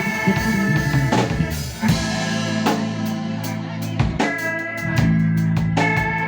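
Live band music: a drum kit keeping time with bass and snare hits under held chords and a steady bass line.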